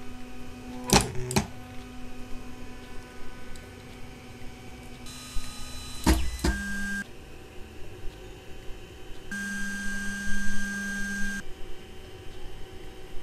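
Creality Ender 3 Pro 3D printer running, switching several times between the stock mainboard and the Creality v1.15 silent mainboard. In some stretches the stepper motors give steady whining tones. In others the motors are barely heard and the cooling fans are what remains. There are a few sharp knocks about a second in and again about six seconds in.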